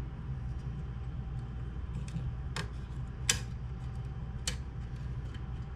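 Three or four sharp metal clicks, the loudest just past halfway, as a wire fan-retention clip is worked into the corner holes of the fan frame on a be quiet! Dark Rock 4 tower heatsink, over a steady low hum.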